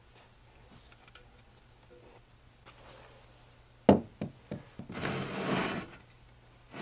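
Quiet, then a single sharp knock about four seconds in, a few lighter knocks, and about a second of rubbing as the restored copper fire extinguisher is handled by its top handle.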